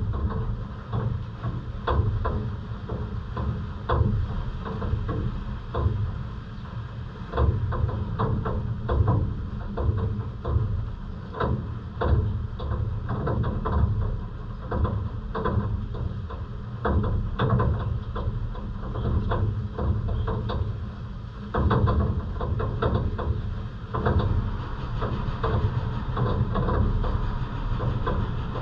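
Heavy rain: irregular, close taps of drops striking a hard surface over a constant low rumble.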